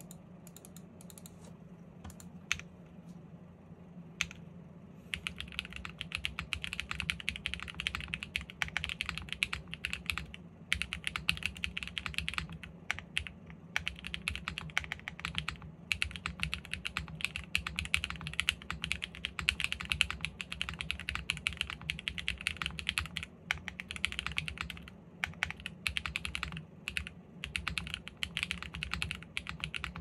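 Typing on a GEONWORKS F1-8X V2 mechanical keyboard with Sarokeys BCP switches, an aluminium plate with plate foam, lubed screw-in stabilisers and GMK Apollo keycaps. A few scattered clicks come in the first seconds, then steady fast typing from about five seconds in, with a few brief pauses.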